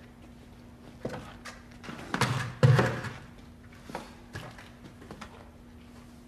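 A few light knocks, then a heavy thump about two and a half seconds in, followed by a few faint clicks, over a steady low hum.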